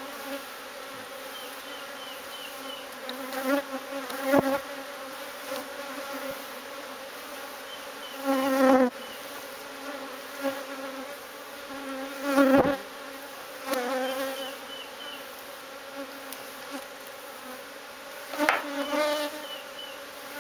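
Honeybee colony buzzing as a steady hum, with single bees flying close past the microphone about five times, each pass swelling and falling in pitch. A few short knocks sound among them.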